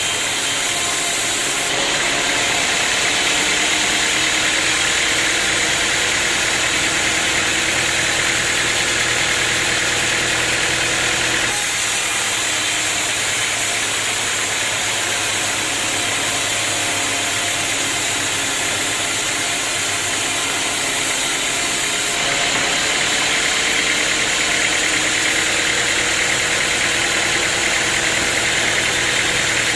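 Sawmill machinery running steadily: an engine-driven drone with a wide hiss over it. Its tone shifts abruptly about 2, 11 and 22 seconds in.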